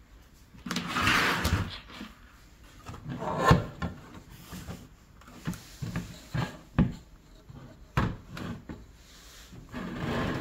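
Objects being handled and set down on a surface. A burst of rubbing and scraping comes about a second in, then a string of separate knocks and thuds, then another stretch of rubbing near the end.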